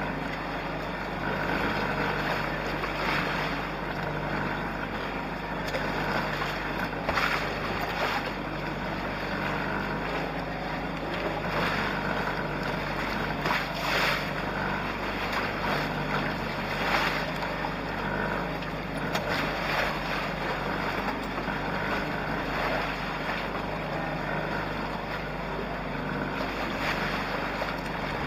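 Wind and water rushing past a small trimaran sailing in choppy sea, with louder splashes every few seconds as steep waves hit the hulls, and wind buffeting the microphone.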